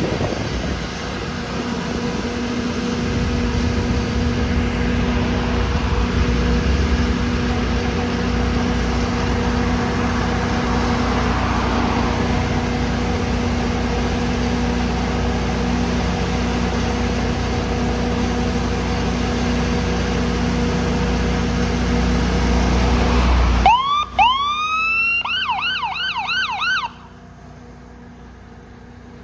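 A fire engine's diesel engine runs with a steady low rumble and a constant hum. About 24 s in, the electronic siren sweeps up, goes into a fast yelp for about three seconds, then cuts off suddenly.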